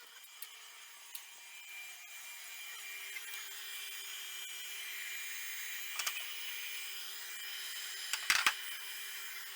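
CNC router milling a wooden board: the spindle runs with a steady whine while the bit cuts, the cutting noise growing louder over the first few seconds. There is a sharp click about six seconds in and a few knocks near the end.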